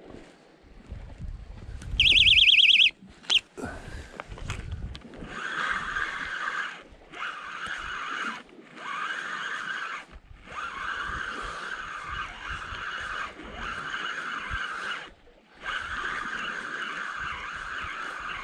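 A rod-tip electronic bite alarm warbles loudly for under a second, signalling a bite. Then a spinning reel whirs in stretches of one to four seconds, with short pauses between them, as the line is cranked in against a bent rod.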